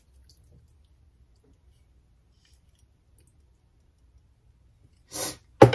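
Mostly quiet, then near the end a brief rush of noise followed by a single sharp knock on a hard surface, the kind made while handling drink containers at a kitchen counter.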